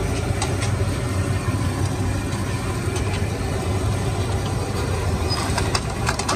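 A steady, low mechanical hum like an idling engine, under a constant noisy background, with a few sharp clicks near the end.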